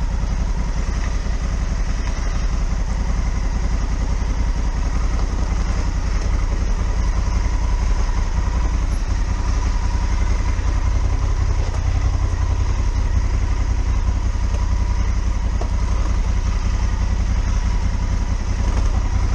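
Honda Africa Twin's parallel-twin engine running steadily at low revs, with no revving, as the bike rolls slowly over a loose, stony track.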